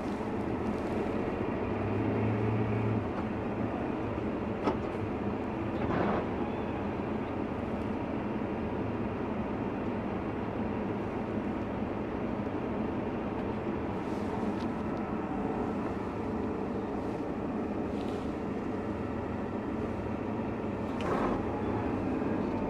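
Tractor engine running steadily while harvesting, with a few faint clicks.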